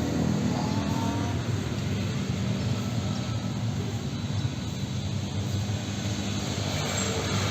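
A motor vehicle engine running steadily with a low hum, over an even hiss.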